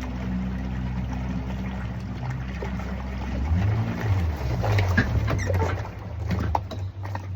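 Jet boat engine running steadily; about halfway through its note drops and wavers. A series of sharp knocks and clunks follows in the second half.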